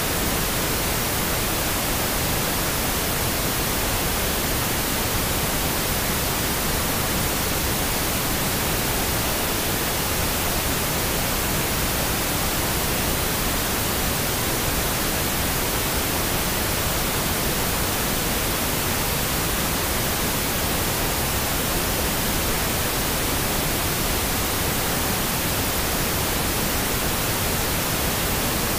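Steady, unchanging hiss of pink noise.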